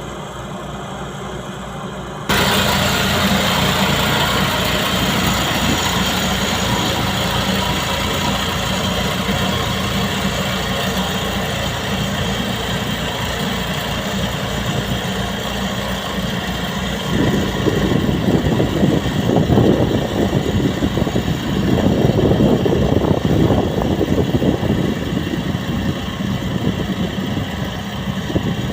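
Skid steer engine running with a vibratory roller attachment. There is a sudden step up in loudness about two seconds in, and the sound grows louder and rougher in the second half.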